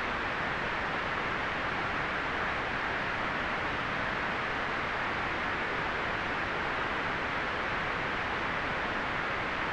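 Steady, unchanging white noise hiss, strongest in the middle range with the highs rolled off.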